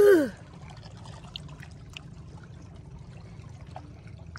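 Shallow sea water trickling and lapping softly around people standing in it, with faint small splashes. A brief drawn-out vocal cry opens it and is the loudest sound.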